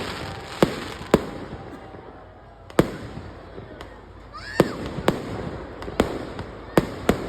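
Firecrackers going off as single sharp bangs at irregular intervals, about eight in all, the strongest near three seconds in and again around four and a half seconds, over a steady background noise.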